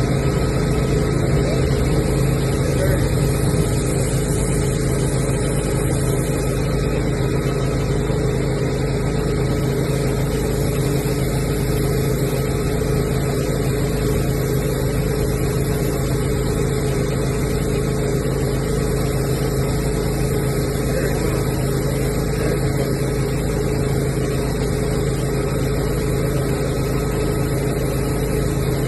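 A machine motor running steadily and loudly, with a constant hum and no change in speed throughout.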